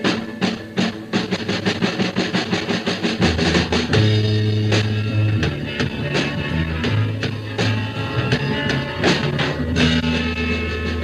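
Live rock band playing: a drum kit keeps a quick, steady beat under bass guitar and electric guitar.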